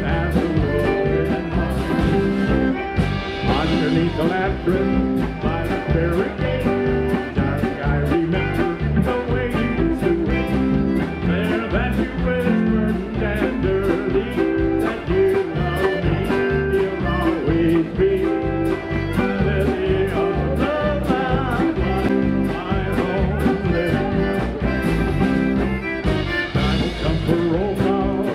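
Live polka band playing: piano accordion over a steady drum beat, with a man singing.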